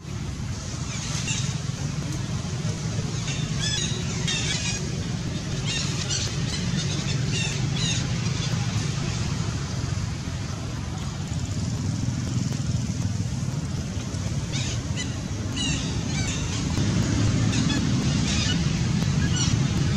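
Outdoor forest ambience: a steady low rumble under short, high-pitched chirping and warbling calls that come in clusters several times.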